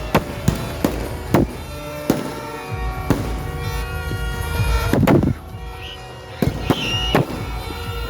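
Fireworks exploding in a rapid series of sharp bangs, with a bigger, longer boom about five seconds in, over music playing in the background.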